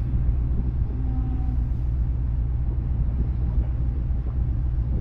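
Steady low rumble of a large car ferry's engines and machinery, heard on its open deck as it prepares to depart.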